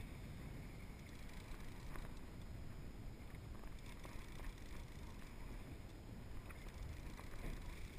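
Steady wind and water noise around an open boat, mostly a low rumble, with a few faint clicks.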